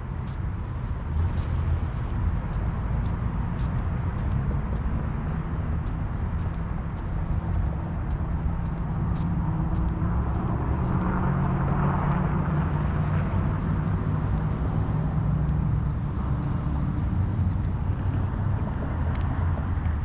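Outdoor traffic rumble that swells as a vehicle passes about halfway through, with the light, regular ticks of footsteps on concrete.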